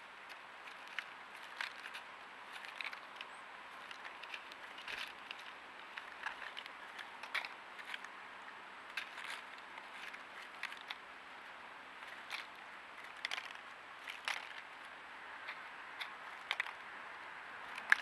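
Small birds pecking and picking through mixed seed in a wooden tray feeder: irregular small clicks and crackles over a faint steady hiss.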